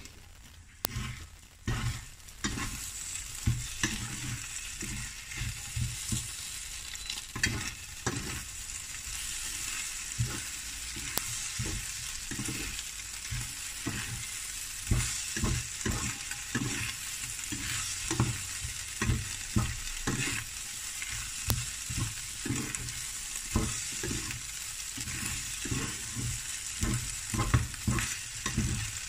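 Diced potatoes and egg sizzling as they fry in a nonstick pan, with a plastic spatula stirring and scraping through them in frequent short strokes and taps against the pan.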